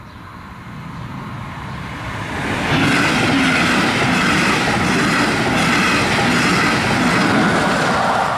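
Double-deck regional passenger train running past across a level crossing. The rail noise builds over the first few seconds as it approaches, then stays loud and steady while the coaches run by.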